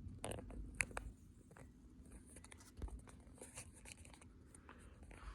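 Nautical ceiling fan running in reverse with a faint, steady low motor hum, under a few light clicks and rustles of handling in the first second or so.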